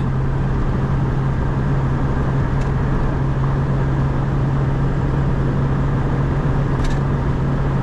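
A 1991 Škoda Favorit 135L's 1.3-litre four-cylinder engine heard from inside the cabin, held hard in fifth gear at about 140 km/h and slowly gaining speed. It is a steady, unchanging engine drone over wind and road noise.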